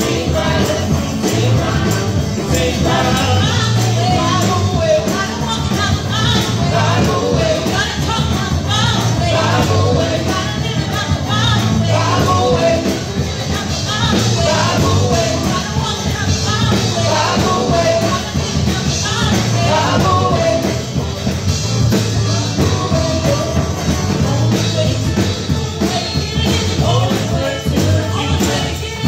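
Women's voices singing a gospel praise song through microphones over loud amplified music with a steady beat.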